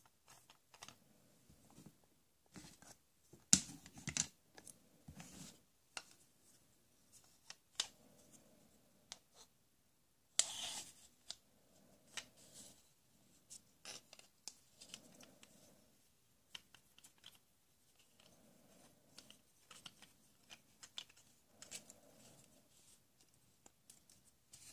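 Hard plastic toy tool parts being handled: the plastic screw of a toy C-clamp is turned and a plastic toy plank is fitted into the clamp, giving irregular small clicks, scrapes and light knocks. There is a louder clatter about three and a half seconds in and again about ten seconds in.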